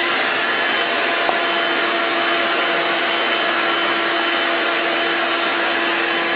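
A steady, unchanging whir of an electric appliance motor, with a constant hum under a spread of air noise.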